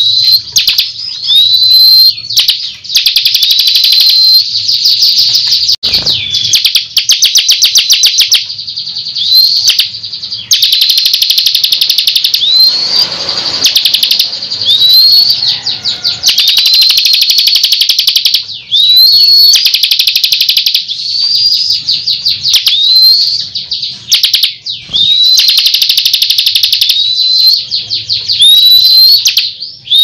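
Bar-winged prinia (ciblek kristal) singing continuously and loudly. Short rising whistled notes, each with a hooked end, repeat roughly every second or two, broken by fast rattling trills.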